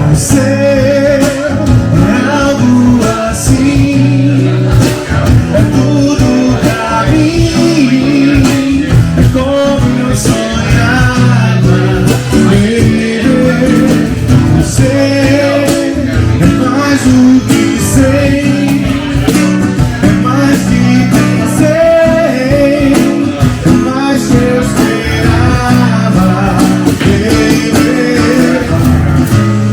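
Music: a guitar-led song with singing, with a steady bass line underneath.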